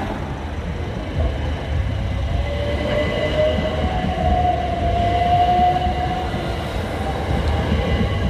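Southern Class 377 electric multiple unit passing close by: a steady low rumble of its wheels on the track, with a whine that rises slightly and holds through the middle of the pass.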